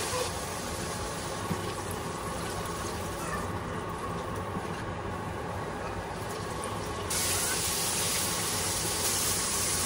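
Boneless chicken pieces frying in oil in a skillet, a steady sizzling hiss that gets louder about seven seconds in.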